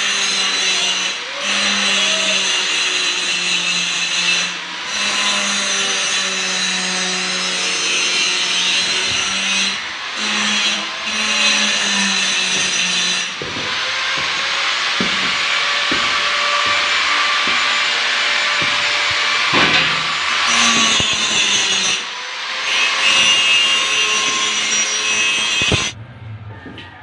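Electric angle grinder running under load on metal, a steady high whine with a few brief dips where the disc comes off the work; it stops about 26 seconds in.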